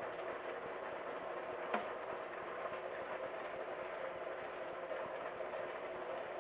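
A steady whirring background noise, with one short sharp click about two seconds in.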